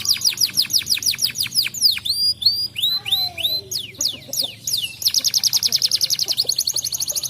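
Domestic canary singing: fast trills of quick downward-sweeping whistled notes, broken in the middle by a few slower, separate notes, then a very rapid rolling trill again.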